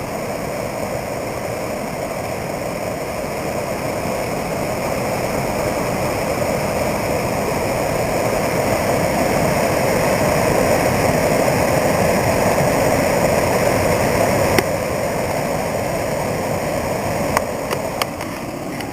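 Watson Falls, a waterfall running full after a week of rain: a steady rush of falling water that grows a little louder through the middle.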